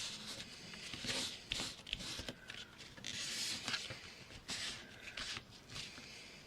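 Paper rustling and being rubbed down by hand as a freshly glued paper pocket is pressed onto a journal page: a series of short swishes with a few light clicks.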